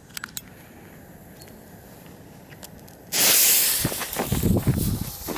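A Jorge Thunder King firework goes off. After a few faint clicks, a sudden loud hissing burst comes about three seconds in, followed by scattered low thuds and crackling.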